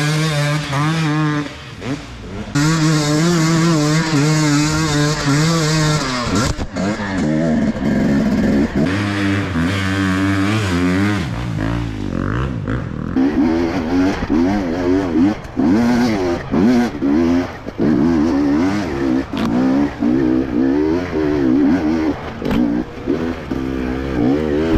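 Enduro motorcycle engine revving hard. It is held at steady high revs for the first few seconds, then the throttle is worked up and down in rapid rises and falls for the rest of the time.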